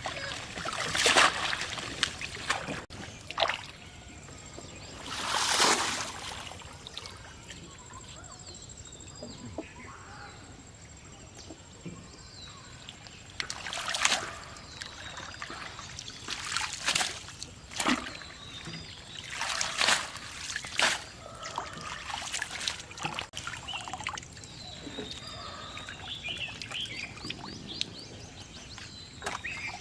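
Shallow water splashing and sloshing in short bursts, about six times, with faint bird chirps between.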